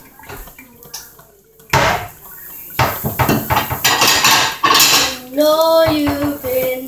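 Dishes and cutlery clattering and clinking as they are washed by hand in a sink, starting about two seconds in, with many sharp knocks. A voice briefly sings near the end.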